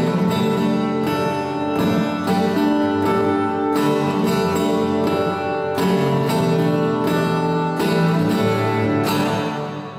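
Solo steel-string acoustic guitar playing an original piece, with ringing chords and melody notes plucked in a steady rhythm.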